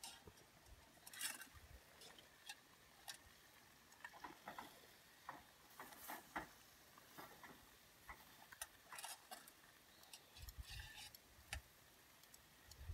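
Faint, scattered clicks and light taps of a metal utensil against a steel camp pot as boiled crayfish are lifted out onto a paper plate, with a few soft thumps about ten seconds in.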